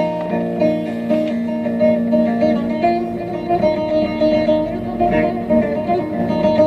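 Instrumental Turkish folk music: a bağlama, a long-necked plucked lute, playing a steady melody with no singing.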